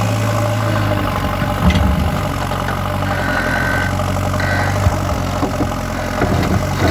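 JCB 3DX backhoe loader's diesel engine running steadily, with a few sharp knocks and a brief high whine about halfway through.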